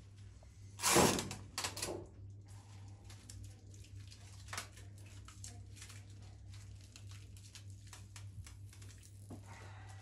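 Rustling and light crackling of cut flower stems and leaves as a large hand-tied bouquet of iris and alstroemeria is handled and adjusted. There are two louder rustles about a second in and just before two seconds in, then a run of faint crackles, over a steady low hum.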